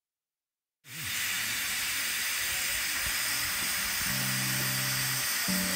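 Steam engine venting steam: a steady hiss that starts abruptly about a second in. A low steady hum joins briefly near the end.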